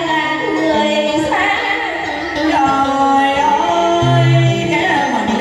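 Woman and man singing a Vietnamese duet into microphones over a backing track with a steady bass line; the woman's voice leads, and the man takes up the melody about four seconds in.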